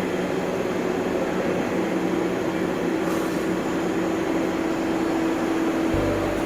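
Toyota Aurion's 2GR-FE V6 engine running at a steady idle, a constant hum and hiss with a steady drone held through it.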